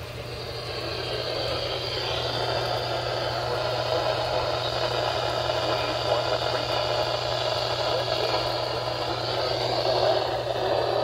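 Radio static: a steady hiss from a weather radio receiver with no signal coming through. It grows a little louder over the first couple of seconds and cuts off suddenly at the end, over a low steady hum.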